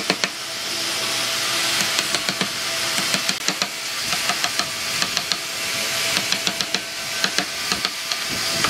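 Steel wood chisel being driven into a wooden beam to chop out a joint notch: a quick, uneven run of sharp knocks as chips split away, over a steady hiss.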